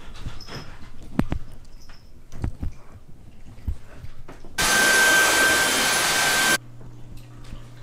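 Soft thumps and rustling of sofa cushions and a knit pillow being patted and plumped, then a Dyson cordless stick vacuum switched on for about two seconds. It runs with a steady high whine and cuts off suddenly.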